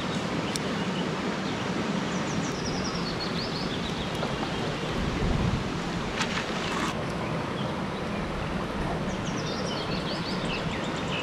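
Steady rush of a flowing stream. A bird twice sings a descending run of short, high chirps, and a couple of sharp clicks come around the middle.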